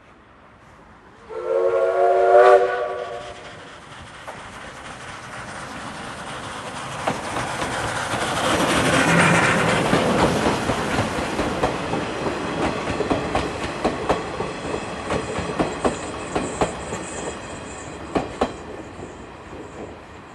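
C12 steam tank locomotive blows one whistle blast lasting about a second and a half, then the train approaches and passes with a rumble that peaks about nine seconds in. Its wheels click over the rail joints as the coaches go by and fade away.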